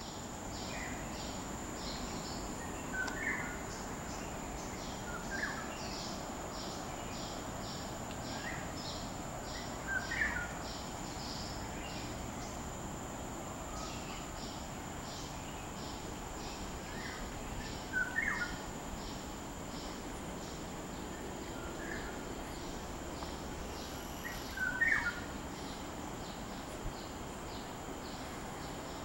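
Insects and a bird. A steady high insect drone runs under a pulsing insect chirp that repeats about twice a second, and a bird gives short calls every few seconds, loudest about ten, eighteen and twenty-five seconds in.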